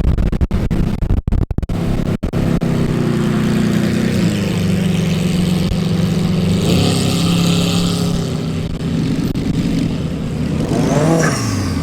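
Sports car engine running at steady high revs, its pitch holding level for several seconds and then falling sharply just before the end.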